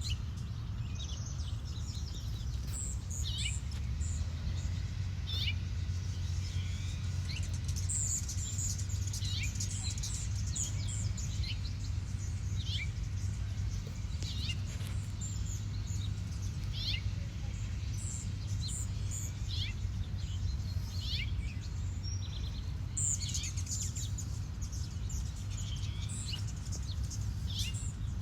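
Small birds chirping again and again, short high notes that sweep quickly downward, over a steady low rumble.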